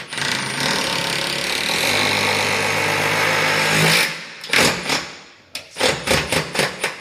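Cordless impact driver driving a screw through a steel unistrut channel into the wall. It runs continuously with a rapid hammering rattle for about four seconds, then fires a series of short bursts as the screw is seated.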